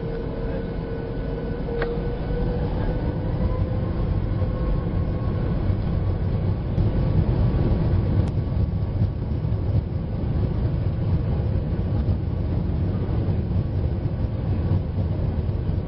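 Boeing 737 MAX 8's CFM LEAP-1B engines spooling up to takeoff thrust, heard from inside the cabin: a whine rising in pitch over the first few seconds, then a steady roar that grows louder as the aircraft picks up speed on the takeoff roll.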